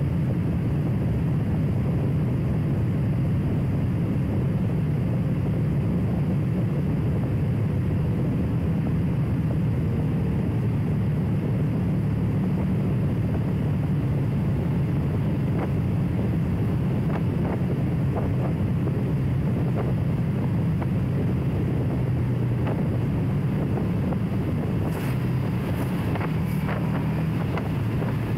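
Motorcycle running at a steady pace with wind rushing over the microphone and a low drone underneath. A few short clicks come near the end.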